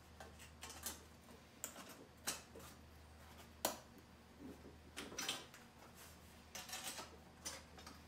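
Metal sunflower petals being bent by gloved hands at a bench vise: irregular light clinks, taps and scrapes of sheet metal, with one sharper knock about three and a half seconds in.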